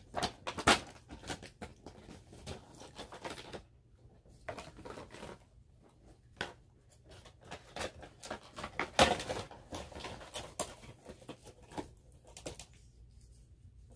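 Clear plastic insert and cardboard window box of a Funko Pop figure being handled as the figure is packed back in: irregular crinkles, taps and clicks, loudest about nine seconds in.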